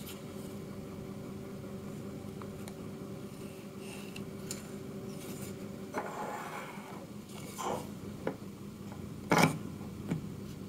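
Light clicks and rubs of a 3D-printed plastic scraper and holder being handled and fitted together, with one sharp plastic knock about nine seconds in as the scraper is set into its holder. A steady low hum runs underneath.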